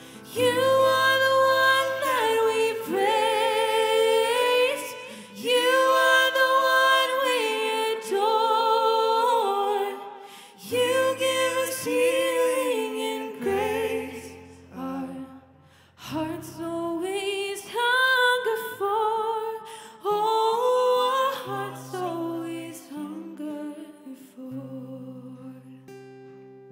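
Church worship band performing a song: sung lines with a wavering, vibrato pitch over acoustic guitar and full band. The singing stops a couple of seconds before the end, leaving only the instruments.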